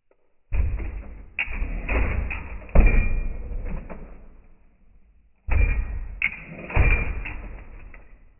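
'62 lowrider with an A-arm hydraulic hopper setup hopping: two runs of heavy thumps and slams as the car bounces and the back bumper strikes the ground, several hits in each run dying away between them.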